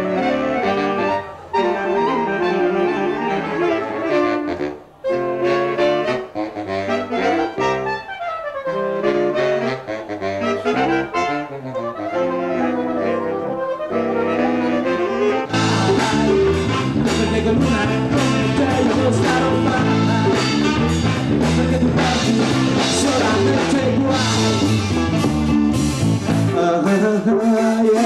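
Live saxophone quartet playing a piece. About halfway through, it cuts abruptly to a band with electric guitar, saxophone and drums, with a fuller, steadily rhythmic sound and more bass.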